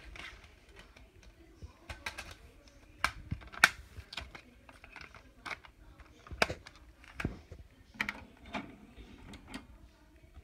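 Irregular light clicks and taps, a few of them sharper: handling and movement noise from a phone being carried and swung around a room.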